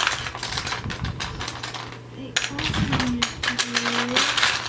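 Loose plastic Lego bricks clattering and clicking in quick, irregular rattles as hands rummage through them.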